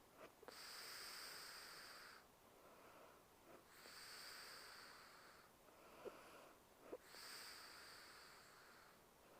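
A sleeping woman breathing slowly and softly: three hissing breaths, each about two seconds long and about three seconds apart, with a few faint clicks between them.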